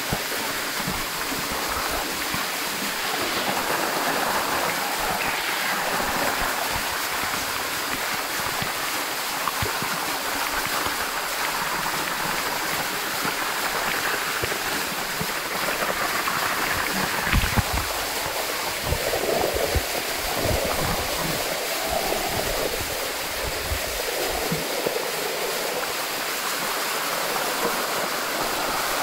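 Small waterfall pouring steadily into a rock pool, a constant rush of falling water. A few low thumps come about two-thirds of the way through.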